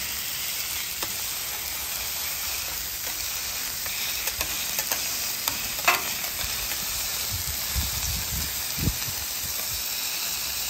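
Ground beef sizzling on a hot Blackstone flat-top griddle as a smash burger is pressed flat under a stainless spatula and bench scraper: a steady hiss with scattered metal clicks, a sharper tick about six seconds in, and a few low thumps near the end.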